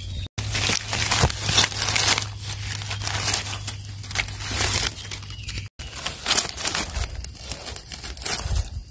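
Dry fallen leaves rustling and crackling in uneven bursts as hands and a knife work through the leaf litter to cut out mushrooms. Two brief drops to silence break it, about a third of a second in and near six seconds.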